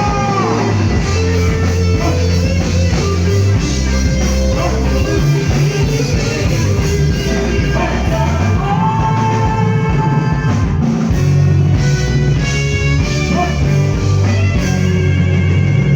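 A band playing amplified through a PA during a sound check, with heavy bass, drums, guitar, and a singing voice at times.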